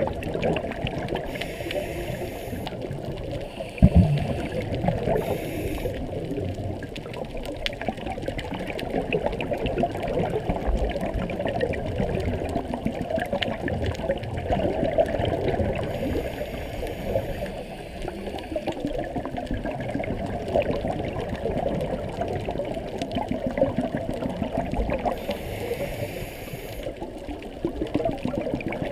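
Underwater sound through a GoPro's waterproof housing on a reef dive: a steady dull water rush with scattered crackling clicks. Four hissing bursts, typical of a scuba diver's exhaled bubbles from the regulator, come and go, and a single knock sounds about four seconds in.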